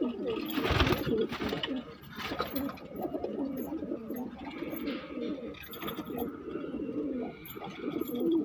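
Several domestic pigeons cooing continuously and overlapping, with a few brief knocks, the loudest about a second in.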